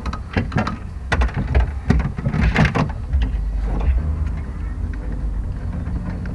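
Hands working air line hoses and wiring around a trunk-mounted air suspension tank: a run of clicks and rustles over the first few seconds, over a steady low rumble.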